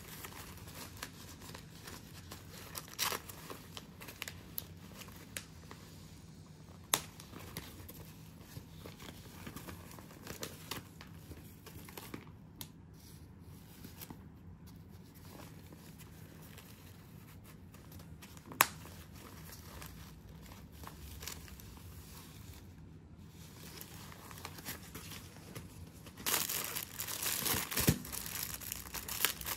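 Clear plastic packaging crinkling and rustling as hands handle a fabric tote bag and its straps, with a few sharp clicks along the way. The crinkling grows louder near the end as a plastic-wrapped item is handled.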